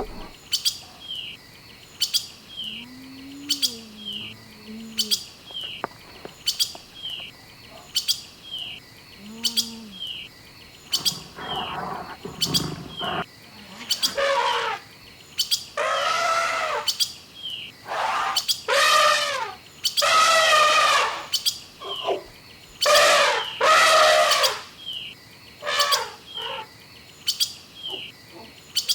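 A bird chirping in a steady repeating pattern, short chirps a little more than one a second. From about halfway, louder, longer calls of about a second each join in, repeated many times.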